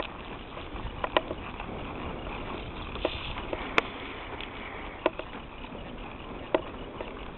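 A horse walking under saddle on a dirt paddock, with a few short, sharp clicks from its hooves and tack at irregular intervals over a steady background hiss.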